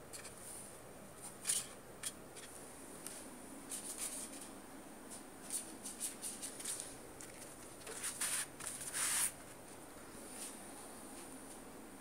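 Paper rustling and crackling as a kitten bats at and drags a glossy card across the carpet, in short scattered bursts, with the longest run of rustling about eight to nine seconds in.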